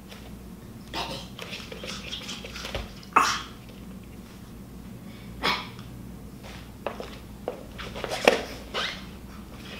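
A tiny Pomeranian yapping on cue: several short, sharp yaps a second or two apart, the loudest near the end.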